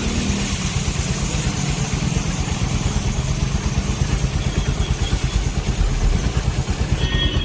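A motorcycle engine idles with rapid, even firing pulses while an aerosol can of chain spray hisses onto the chain. The hiss stops shortly before the end.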